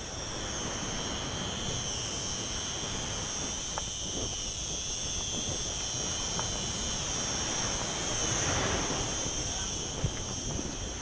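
Seaside ambience: wind and surf noise, swelling about eight seconds in, under a steady high-pitched buzz.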